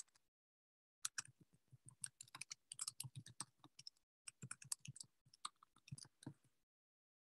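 Faint, rapid, irregular clicking of typing on a computer keyboard, in two runs with a brief pause about four seconds in.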